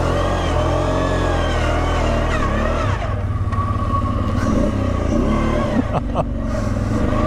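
Off-road vehicle's engine running on rough terrain, its pitch rising and falling with the throttle.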